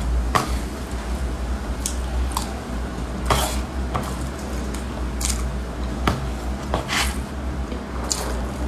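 Metal spoon scooping into a dense cake and scraping a cardboard cake board, with close-up biting and chewing sounds: a scattered string of short clicks and soft squishy scrapes over a steady low hum.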